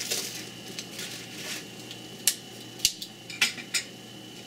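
Metal fork and utensil scraping and clicking against a plate as a fried patty is turned over on paper towel. A soft rustling scrape in the first second and a half, then four sharp clinks in the second half.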